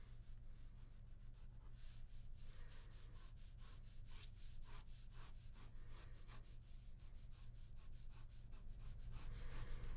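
Ballpoint pen scratching across drawing paper in quick, irregular strokes as lines are sketched in, over a steady low hum.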